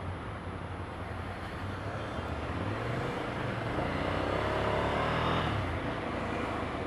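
Motor vehicle engines in road traffic: a steady low engine hum, with an engine revving up and rising in pitch from about three seconds in, then dropping away just before six seconds.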